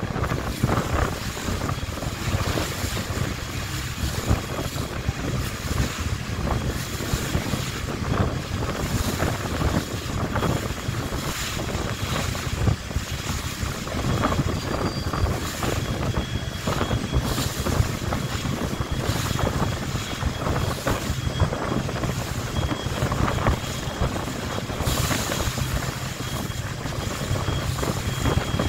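Boat engine running steadily with a low hum, under wind buffeting the microphone.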